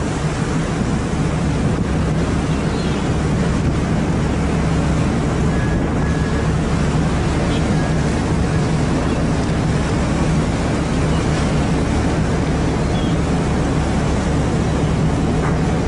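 Fishing boat's engine running with a steady low hum, under wind and water noise.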